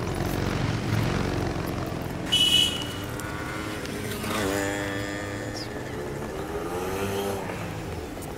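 Street traffic ambience: vehicles running past with a steady low rumble, and one short, high-pitched horn honk about two and a half seconds in, the loudest sound here.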